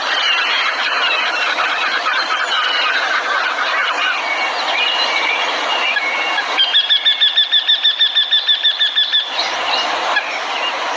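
Songbirds chirping and twittering densely, several calls overlapping. About two-thirds of the way through, one bird gives a fast series of evenly repeated notes, about eight a second, for roughly two and a half seconds, which stops abruptly.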